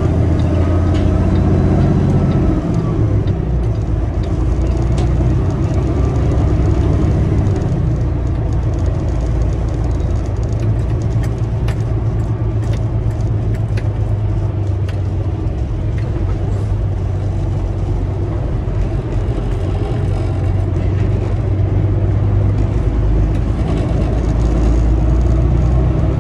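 Semi-truck's diesel engine and road noise heard from inside the cab while driving: a steady low drone, with a few faint clicks through the middle.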